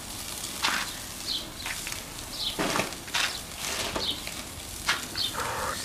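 Steaks and sausages sizzling and crackling over hot charcoal on a kettle grill, with a few sharp clicks and scrapes as metal tongs turn the meat.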